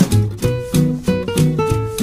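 Background music: an upbeat guitar tune with plucked notes over a bass line and a steady beat.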